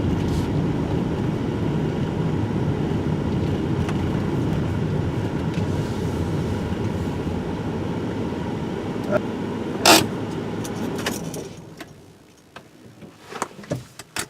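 Steady low road and tyre rumble heard from inside a moving car, which fades away about eleven or twelve seconds in. There is one sharp click just before it fades, and a few light clicks and knocks follow it.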